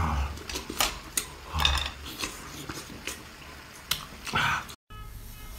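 Close-miked eating of braised octopus: wet smacking, sucking and clicking sounds as it is bitten, chewed and pulled apart by hand, with a few louder squelches.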